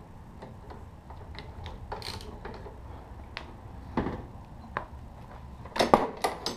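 Scattered light metal clicks and knocks as a long socket extension is fitted onto the lower bolt of a Vespa LX150's front shock, with a short cluster of clicks near the end.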